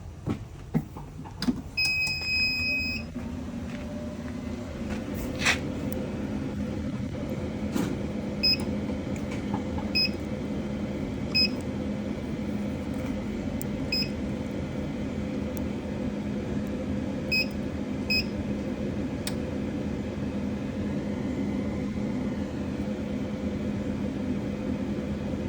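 Ford Transit van's engine idling with a steady low hum. A long electronic beep sounds about two seconds in, and six short beeps of the same pitch come at uneven intervals through the middle, typical of a dashboard warning chime.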